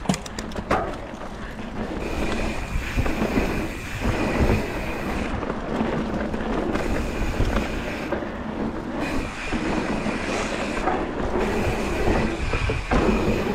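Mountain bike ridden fast down a dirt trail: a steady rough rumble of tyres on dirt and the bike rattling, with wind buffeting the microphone. A high steady buzz comes and goes in stretches.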